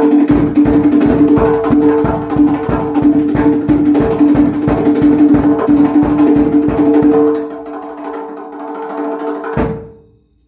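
Solo drumming: a fast run of drum strokes, about six a second, over a steady ringing drum tone, easing off about seven seconds in. One last stroke near the end rings out and fades to silence.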